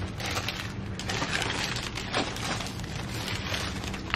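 Foil wrapper of a baseball card pack being torn open and crinkled in the hands, a steady crackling rustle with small sharp ticks.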